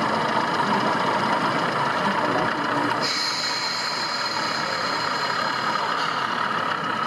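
Recorded diesel engine idling from a DCC sound-fitted 00 gauge model locomotive, played through its small onboard speaker over crowd chatter. A higher steady tone joins about three seconds in.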